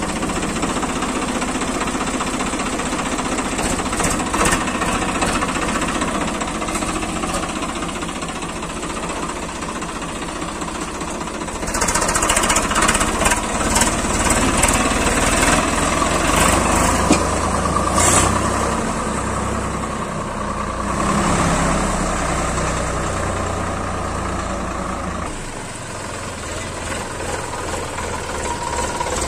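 Diesel tractor engine running steadily. It gets louder for about a dozen seconds in the middle, then drops back a few seconds before the end.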